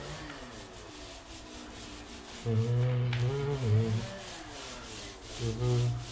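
Paint roller loaded with epoxy primer rubbing over a concrete floor and wall in quick, even strokes. A louder low humming tone with a few overtones comes in twice over the rubbing, about halfway through and near the end.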